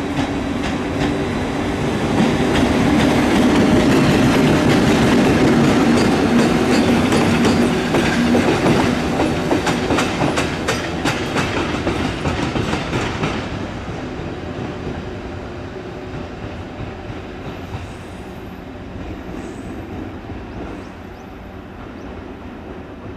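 EF81 electric locomotive running light past, its wheels clicking rapidly over rail joints and points. It is loudest in the first half, then fades steadily as it draws away.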